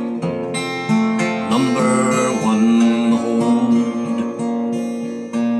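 Acoustic guitar strummed in a slow instrumental passage between verses, the chords ringing on through an amp set with delay and reverb, with fresh strums about a second in and again near the end.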